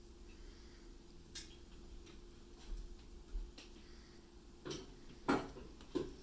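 Light, irregular clicks and taps of small fountain pen parts being handled and touched together, with a few louder taps near the end.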